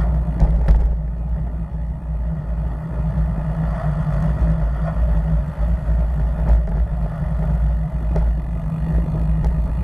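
Steady low rumble of wind and road noise on a bicycle-mounted camera while riding on a paved road, with a few sharp clicks.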